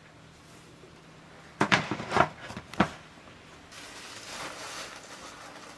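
A few sharp knocks in quick succession, then the rustling of a cloth sack being handled.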